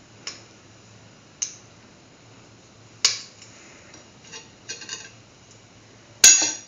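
Spatula knocking and clinking against a stainless steel pan while fried raisins are scooped out: a few separate sharp clinks, with the loudest near the end.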